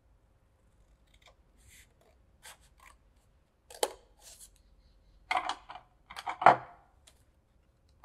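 Scissors cutting through folded canson drawing paper along the fold in a series of short, crisp snips that grow louder, the loudest about six and a half seconds in.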